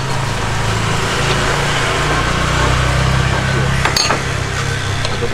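Knife slicing boiled beef on a wooden chopping block, with one sharp click about four seconds in, over a steady low drone.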